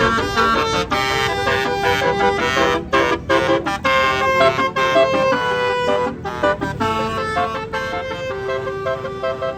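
Tour bus's Basuri telolet horn playing a melody: held horn notes that change pitch, some long and some in quick short runs, with a few brief breaks about three seconds in.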